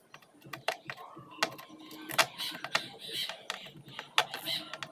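Irregular sharp clicks and taps of small hand tools on a circuit board during SMD IC soldering work, with some brief scratchy scraping between them.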